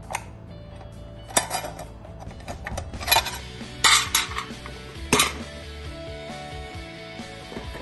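Removable nonstick cooking plate of a Perysmith 3-in-1 waffle maker being unclipped and lifted out of the appliance, clattering with about five sharp clicks and clanks.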